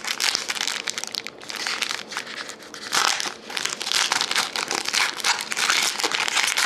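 Foil wrapper of a Panini Titanium trading card pack crinkling as it is pulled open and the cards are slid out. The crinkling is loudest about three seconds in and through the second half.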